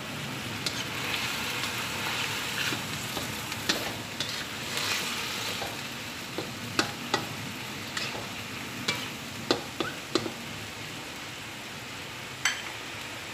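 Tofu and mushrooms sizzling and bubbling in soy-sauce liquid in a wok, a steady hiss. A utensil clicks against the wok now and then as the pan is stirred.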